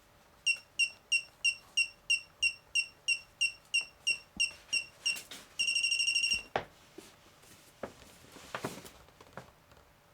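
Electronic buzzer on a motorised camera gimbal's controller beeping at power-up. It gives about fifteen short high-pitched beeps at about three a second, then one longer beep of the same pitch. A few faint clicks follow.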